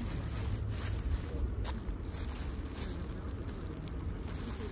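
Clear plastic bread bag crinkling in the hand, in a few short rustles, over a steady low rumble of wind on the microphone.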